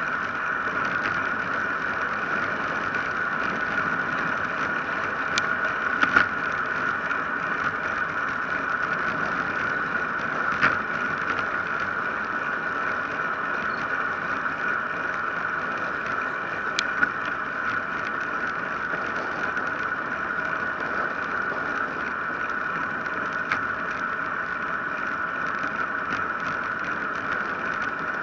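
Steady rush of wind and tyre noise from a bicycle coasting downhill on asphalt, with a constant mid-pitched hum and a few short sharp clicks or knocks.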